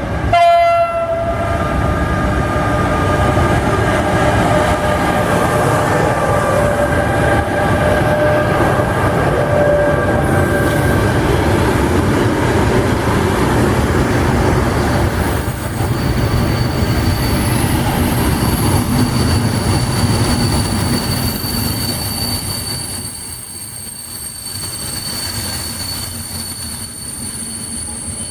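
A train passing: a short horn blast about half a second in, then the steady rumble and clatter of the train going by. From about two-thirds of the way through, a high steady squeal sounds over it, and the rumble fades a little near the end.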